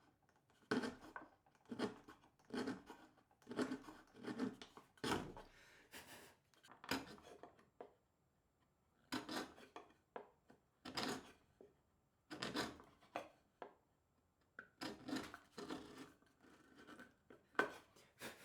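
Repeated short scraping strokes of a hand tool worked back and forth, about one to two a second, with two brief pauses.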